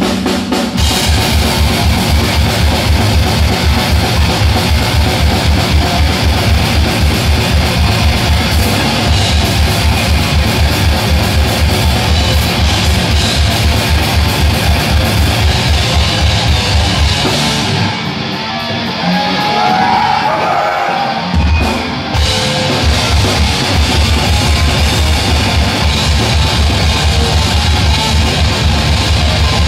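Death metal band playing live: heavily distorted electric guitars over fast, steady double-kick drumming. About two-thirds of the way through, the drums drop out for a few seconds, then the full band comes back in.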